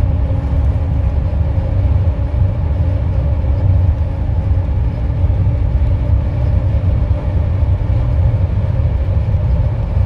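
A car travelling at highway speed, heard from inside the cabin: a steady low rumble of road and engine noise.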